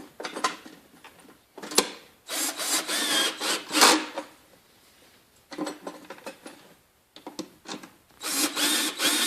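Drill with a 13 mm socket and torque setting driving nuts tight on threaded rods, running in two bursts of about a second and a half, one about two seconds in and one near the end. Sharp knocks come at the start and just before the first burst.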